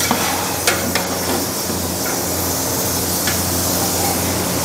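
A long metal ladle stirring raw mutton in a large aluminium cooking pot, knocking against the metal a few times, over a steady hiss and low hum.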